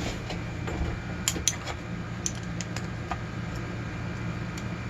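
Scattered small sharp clicks and taps of a metal padlock and its key being handled, about seven in all and irregularly spaced, over a steady low background hum.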